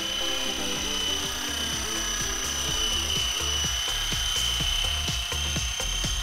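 Steady high-pitched whine of a one-bladed electric RC helicopter's motor in flight, with background music of low bass notes and a regular beat beneath it.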